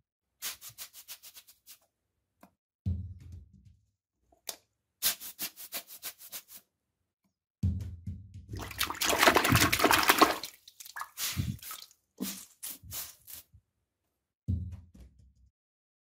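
A toilet flushing: a rush of water about halfway through that lasts around two seconds. Around it come scattered clicks and a few low thuds, from small balls knocking against the ceramic bowl.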